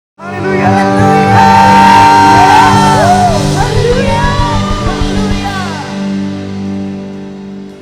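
Church worship band music, with sustained keyboard-like chords and voices shouting and singing over it. It starts abruptly and fades down over the last couple of seconds.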